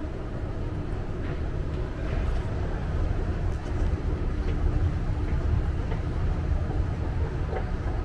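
A steady low rumble of city background noise.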